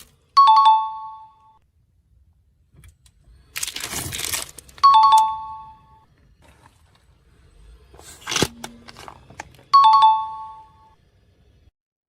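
Objects crunching and cracking as a car tyre rolls over them, twice, each crush followed by a two-note falling "ding-dong" chime sound effect; the chime sounds three times and is the loudest thing heard.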